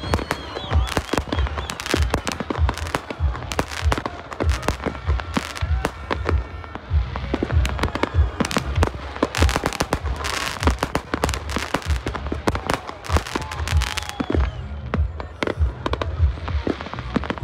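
Fireworks display: aerial shells bursting in quick, continuous succession, a dense run of sharp bangs and crackles over repeated deep thumps.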